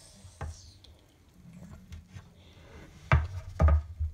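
Handling sounds at a table: a quiet stretch with one faint knock and light rustling, then three short knocks close together about three seconds in, as things on the baking tray are handled.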